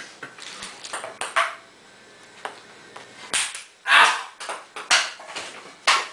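A ping-pong ball being hit and bouncing off hard surfaces: a string of separate sharp knocks, the loudest about four seconds in.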